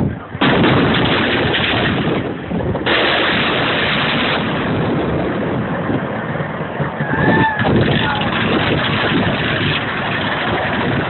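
Fireworks display: a dense, rapid barrage of bangs and crackling that thins out after about six seconds.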